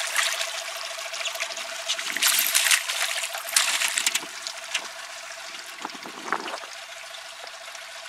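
Hooked northern pike thrashing at the surface beside the boat, splashing in bursts about two and three and a half seconds in, then weaker splashes as it is lifted. A steady faint tone runs underneath.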